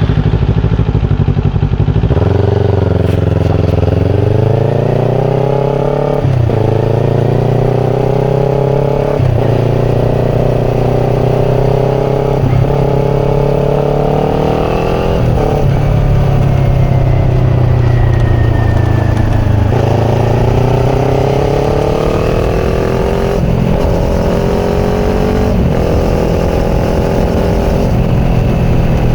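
Kawasaki Ninja 400's parallel-twin engine through a Yoshimura slip-on exhaust, accelerating through the gears from about two seconds in: the pitch climbs and drops sharply at each upshift, roughly every three seconds. In the middle the pitch falls as the throttle is eased, then climbs again through two more shifts near the end.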